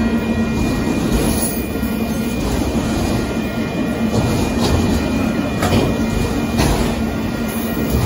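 Autorack cars of a Union Pacific freight train rolling past a grade crossing: a steady loud rumble of steel wheels on rail. A few sharp clacks come from the second half, with a faint steady high tone underneath.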